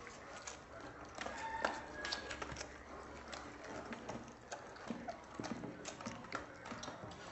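Newborn puppies suckling milk from baby bottles: a dense, irregular run of small wet sucking and smacking clicks, with a couple of short squeaks about two seconds in.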